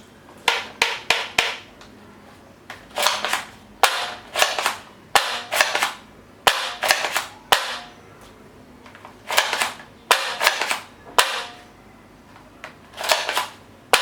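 Toy guns firing: sharp gunshot-like bangs in quick clusters of two to four, each bang trailing off briefly, with pauses of about a second or more between clusters.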